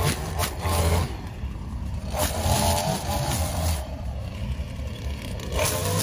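String trimmer engine running, revving up and easing back several times as it cuts through tall weeds and grass.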